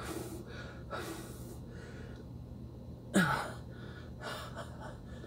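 A man breathing hard through his mouth, winded from exercise: a few audible breaths, with one louder, sharper gasp about three seconds in.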